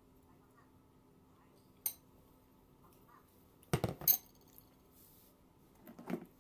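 Fork and bowl clinking: a single sharp click, then a short clatter of several knocks a little under four seconds in, and a few softer knocks near the end.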